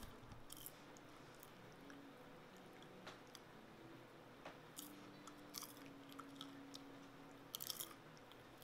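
Faint popcorn chewing: a handful of soft, scattered crunches over a quiet room.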